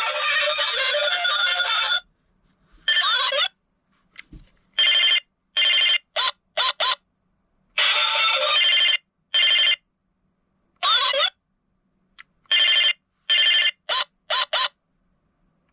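Pink toy mobile phone playing tinny electronic sounds through its small speaker: a song that stops about two seconds in, then a string of about fourteen short ringtone-like snatches, each cut off abruptly, with silence between.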